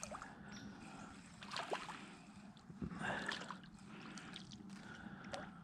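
Faint, brief splashing of a small hooked bluegill being reeled in across the pond surface.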